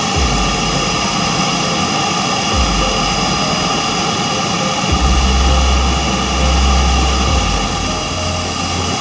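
Kingtech K-130 G4 model jet turbine running steadily, a continuous high whine over a dense rushing hiss, with low rumbles coming and going.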